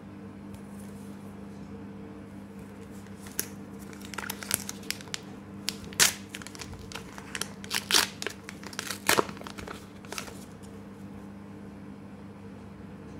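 A Pokémon card booster pack's wrapper crinkling and tearing as it is opened by hand, a run of sharp crackles from about four seconds in until about ten seconds in, over a steady low hum.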